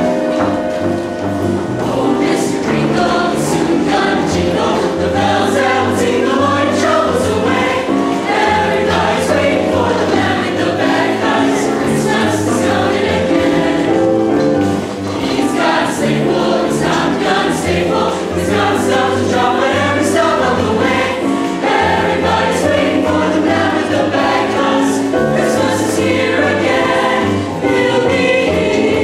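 Music from a large ensemble playing full, sustained chords.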